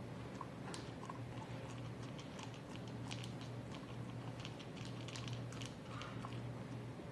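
A dog chewing: a run of small, quick, irregular mouth clicks over a steady low hum.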